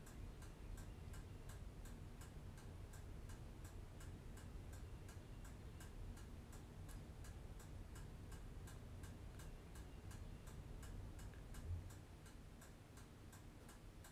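Faint, steady ticking of a clock, about two ticks a second, over a low room hum.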